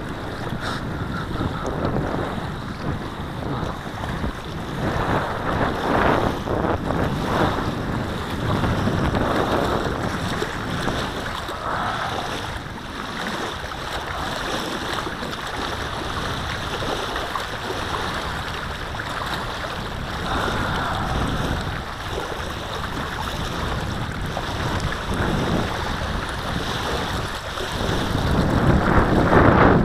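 Gusty wind buffeting the microphone over the wash of choppy lake water. The noise swells and eases in gusts and is loudest near the end.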